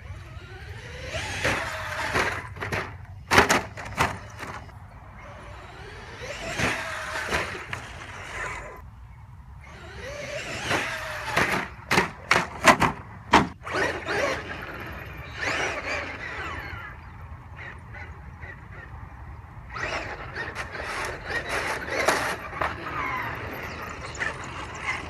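Traxxas X-Maxx electric RC monster truck running in several passes, its motor whine rising and falling with the throttle over tyre noise on the ground. Two clusters of sharp knocks and clatter, a few seconds in and again about halfway, as the truck hits and lands.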